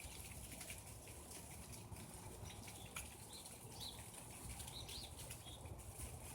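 Frosted leaves falling and landing, making a faint, continuous patter of many light ticks and rustles.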